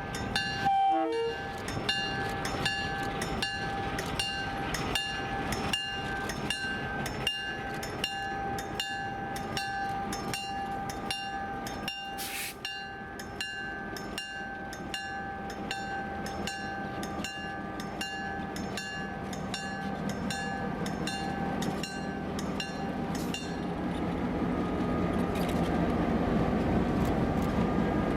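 A bell rings steadily, about two strikes a second, over the running EMD GP7 locomotive and its 567B diesel engine. The engine grows louder in the last few seconds.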